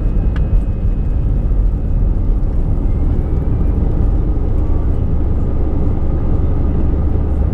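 Steady low rumble inside an Airbus A320 cabin: engine and airflow noise.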